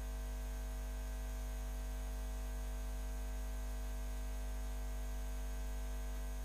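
Steady electrical mains hum with a faint hiss.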